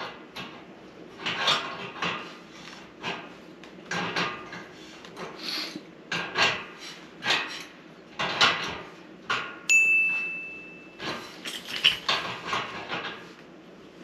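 An adjustable wrench clinking and scraping on the threaded brass fitting as the braided gas line is tightened onto the stove's inlet, in short metallic strokes about once or twice a second. Near the middle, a steady high beep lasts just over a second.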